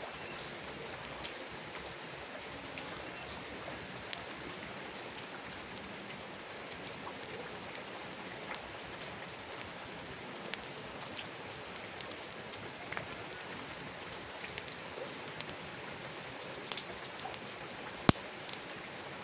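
Wood campfire burning in the rain: a steady hiss of rainfall with frequent short crackles and pops, and one loud sharp pop near the end.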